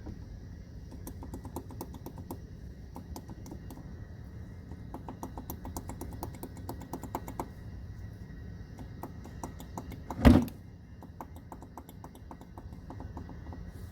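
Hand tools working on the engine's bottom end, its sump off, while the connecting-rod big-end bearing caps are checked: runs of rapid light clicks, and one loud clunk about ten seconds in.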